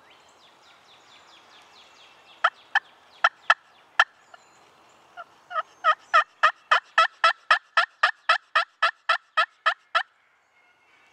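Loud turkey calls: five sharp, separate notes, then after a short gap a steady run of about eighteen quick notes, around four a second, that stops abruptly.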